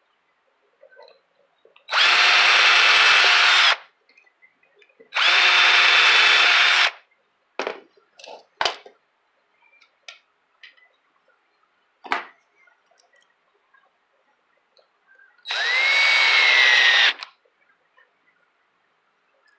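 Power drill driving screws to fasten a plastic spring-terminal block down. There are three runs of about two seconds each, and in the last the whine rises and then sinks a little. A few light clicks of small parts being handled fall between the second and third runs.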